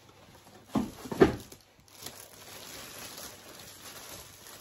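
Two dull thumps from a cardboard packing box about a second in, the second louder, then a steady rustle and crinkle of plastic wrapping being handled inside the carton.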